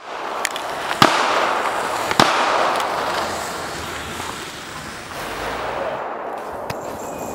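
Gunshots at an outdoor shooting range: two loud shots about a second apart, each followed by a long echo. Fainter shots crack now and then afterwards.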